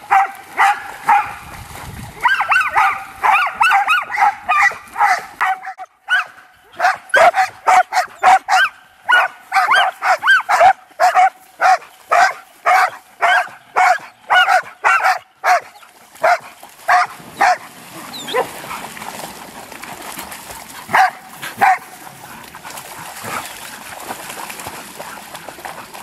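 A dog barking over and over in a steady, fast series of about two barks a second, then breaking off, with a few single barks after a pause.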